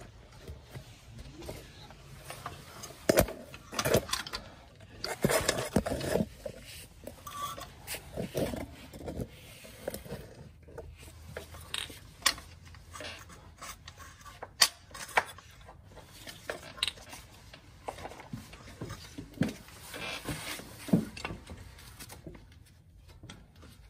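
Metal brake parts and hand tools clinking and knocking at irregular intervals while brake components are fitted on a car's front wheel hub, with a few sharper clanks now and then.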